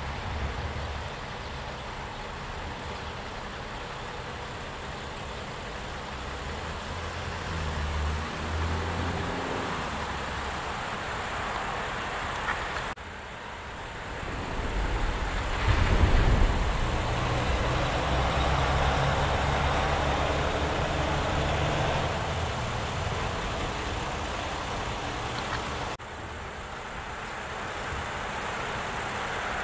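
Passing road traffic: a steady rumble of engines and tyres, swelling as a heavier vehicle goes by about halfway through. The background changes abruptly twice.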